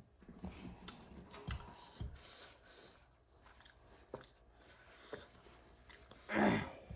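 Close mouth sounds of someone chewing ramen noodles, with scattered faint clicks, and a brief voice sound near the end.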